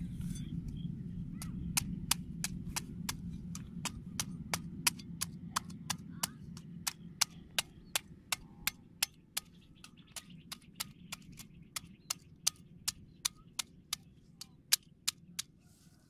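A knife blade knocking in quick, even strokes, about two or three sharp knocks a second, starting a second or two in and stopping near the end, over a low rumble that slowly fades.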